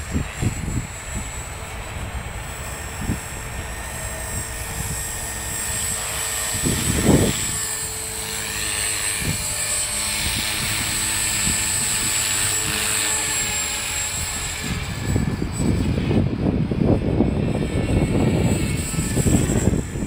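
Electric RC helicopter (CopterX 450 class) in flight: its motor and rotors make a steady high whine that grows louder while it hovers close, mid-way. Gusts of wind buffet the microphone, heavily in the last few seconds.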